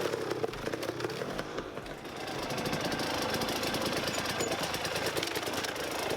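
4x4 vehicle engine running steadily at low revs, a fast even chugging on the trail.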